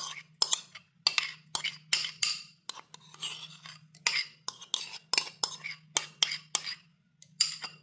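Metal spoon scraping and clinking against a bowl in a quick, irregular run of clicks as thick mayonnaise is scooped out into a jug of dressing.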